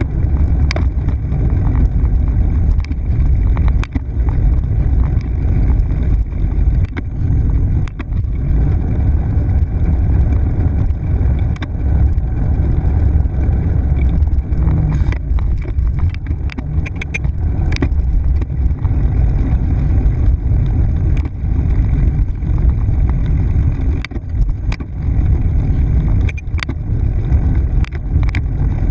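Bicycle riding along a concrete trail, heard from a handlebar-mounted camera: a steady low rumble of wind on the microphone and tyre noise, with scattered light clicks and knocks that come thickest around the middle.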